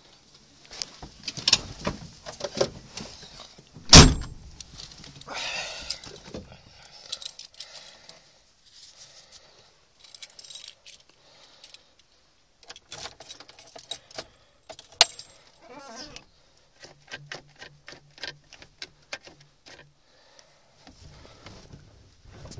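Car keys jangling and clicking at the ignition on the steering column, with one loud thunk about four seconds in. The engine is not running yet.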